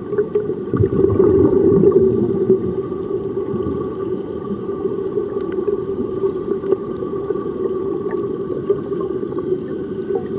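Steady underwater bubbling and gurgling, heard as a muffled rush from a camera under water, from air streaming out of the divers' helmet-diving helmets.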